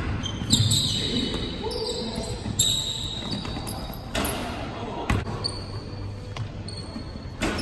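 Basketball bouncing on a hardwood gym floor, a few sharp bounces, with many short high squeaks of sneakers on the court.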